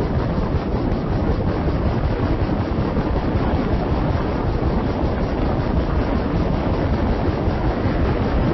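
Wind buffeting a phone's microphone: a steady, loud rushing noise with a heavy, unsteady rumble.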